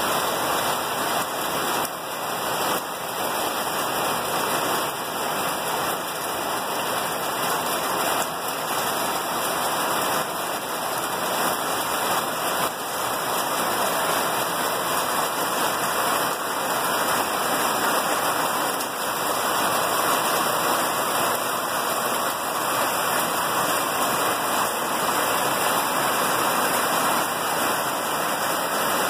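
Heavy rain pouring steadily, a dense even hiss of drops.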